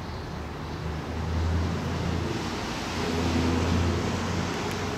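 A motor vehicle engine running nearby: a low hum at a steady pitch that swells twice, over a steady hiss of background noise.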